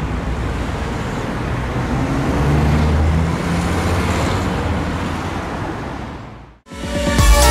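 A departing fire engine's engine running low over road traffic noise, swelling and then fading away. Near the end the sound cuts out briefly and a louder clip with the steady tones of a siren begins.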